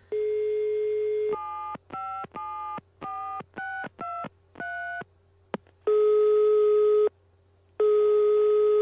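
Telephone call being placed: a steady dial tone, then seven quick touch-tone keypad beeps as a number is dialled, a click, and two long ringing tones on the line as the call rings through.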